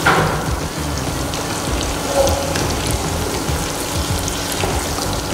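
Masala-coated quail pieces deep-frying in a pot of hot refined oil: a steady, crackling sizzle as they cook and are turned in the oil.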